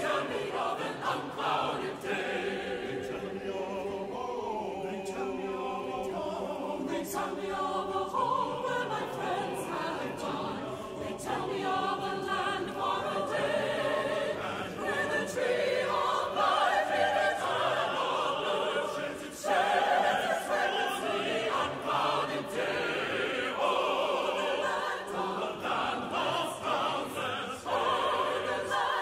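Church choir singing a hymn in long, held phrases.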